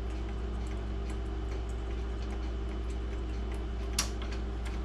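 Mechanical clocks ticking faintly over a steady low hum, with one sharp click about four seconds in as the grandfather clock's movement is handled.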